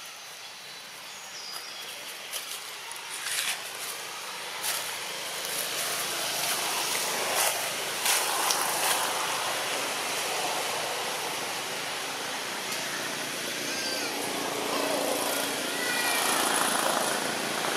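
Steady engine noise that swells gradually, with a few sharp clicks in the first half.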